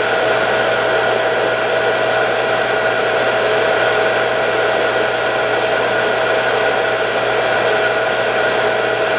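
Water pump running steadily with a constant motor whine and rush, refilling the plumbing and water heater after winter shutdown while the lines purge air; to the owner it sounds as if it has no load on it.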